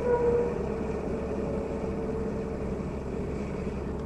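Steady drone of motor traffic, with a brief louder tone in the first half-second.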